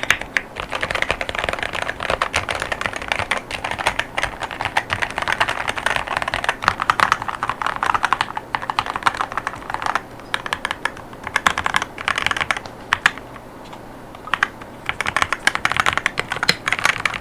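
Fast typing on a Wooting 80HE mechanical keyboard in a transparent plastic case, with Lekker L60 linear switches and PBT OEM-profile keycaps: a dense run of keystrokes with brief breaks and one short pause about three quarters of the way through.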